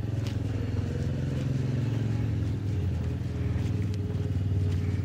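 A motor vehicle's engine running steadily, a low pulsing hum.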